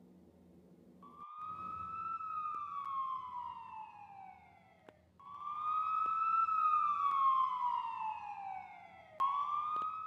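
Emergency vehicle siren wailing. Each cycle climbs briefly, then slides slowly down in pitch over about three seconds. The wail starts about a second in, and new cycles begin about five and nine seconds in.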